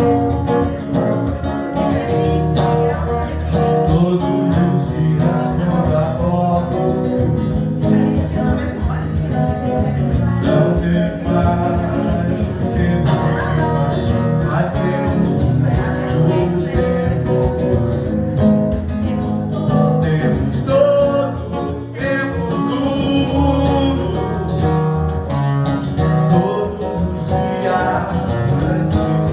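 Forró band playing, with plucked strings, a steady percussion beat and singing.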